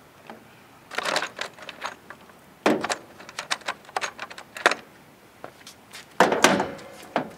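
A hard plastic hardware case and the small metal parts in it being handled: a run of clicks, rattles and clatter. The loudest knocks come about two and a half seconds in and again about six seconds in.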